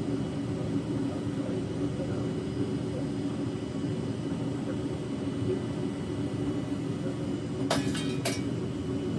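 Burner of a backyard foundry furnace running with a steady roar while a bronze charge melts in the crucible. A few sharp clicks come together shortly before the end.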